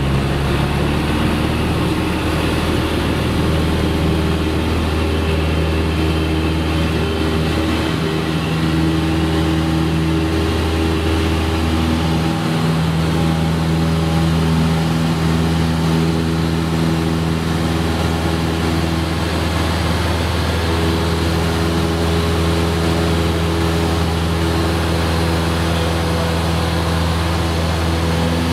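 Single-engine propeller airplane's piston engine and propeller at takeoff power, heard from inside the cabin as a loud, steady drone through the takeoff roll and lift-off.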